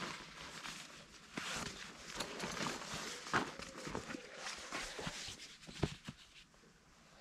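Rummaging in a backpack and handling gear: fabric and strap rustling with scattered light knocks and a few footsteps on the woodland floor, quieting near the end.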